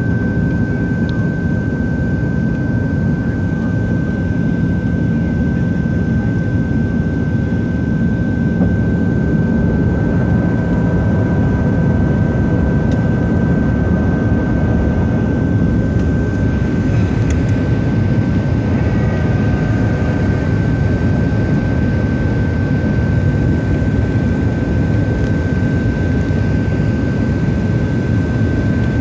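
Steady cabin roar of a Boeing 737-700 on approach, from its CFM56-7B turbofan engines and the airflow over the airframe. A steady high whine sits over the roar.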